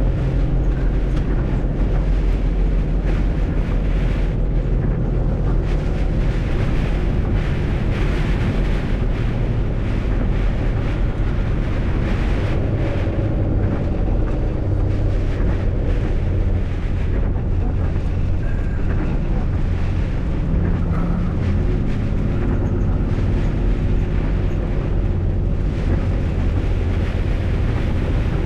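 MAN truck's diesel engine running steadily, heard from inside the cab, with tyre hiss from the wet road underneath.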